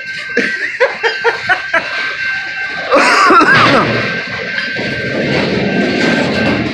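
CSX freight train passing close by: a steady rumble and rattle of the railcars that becomes loud about three seconds in.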